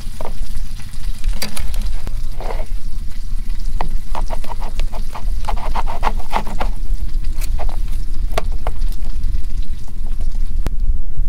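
Knife and fork scraping and clicking against a camp plate as a steak is cut, in a run of short clicks that is busiest in the middle. A steady low rumble lies under it throughout.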